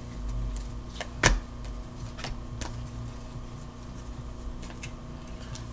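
A deck of cards being shuffled and handled by hand: scattered soft clicks and flicks, the loudest a sharp tap about a second in, over a steady low hum.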